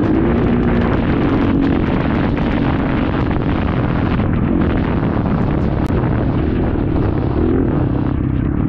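Dirt bike engine running under throttle at riding speed, its pitch wavering a little as the rider eases on and off the gas.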